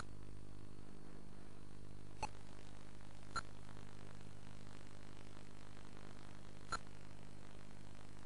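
A steady low electrical-sounding hum with a faint hiss, broken by four brief sharp clicks at irregular moments.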